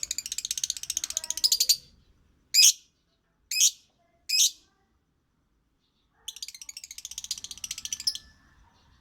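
Lovebird singing: a rapid, high chattering trill, then three short loud chirps about a second apart, then another rapid trill.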